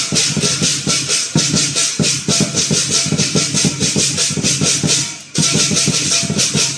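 Lion dance percussion: a drum beating under rapid clashing cymbals, about five clashes a second, with a short break about five seconds in.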